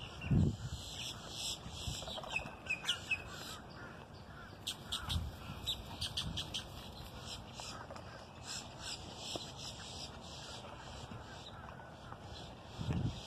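Many birds chirping and calling, a steady scatter of short high calls, with a few low thumps on the microphone.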